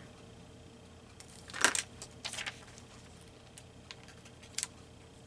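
Paper and craft tools handled on a tabletop: one sharp click about one and a half seconds in, then a few lighter clicks and rustles.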